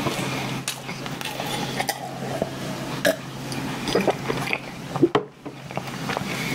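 Close-miked mouth sounds of chewing bread and gulping milk from a glass, with many small wet clicks, and a sharp knock about five seconds in as the glass is set back down on the table.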